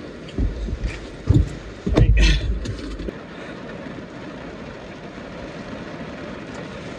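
Towel rubbing over wet hair and face, with several dull bumps and a brief loud rustle in the first three seconds, then a steady hiss.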